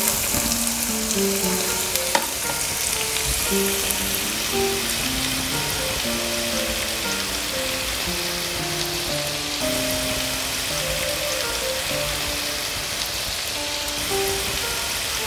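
Finely chopped onions frying in hot oil in a pan, a steady sizzling hiss, with soft background music over it.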